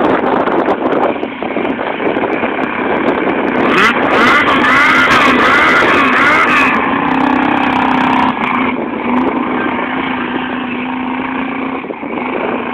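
Race pickup truck's engine running loud on a muddy track, revving up and down rapidly several times about four seconds in, then holding a steady pitch.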